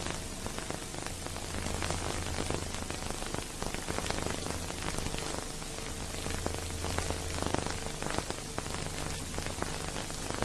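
Steady hiss and dense crackle over a low hum, with no music or voices: noise on the soundtrack of a transferred silent film.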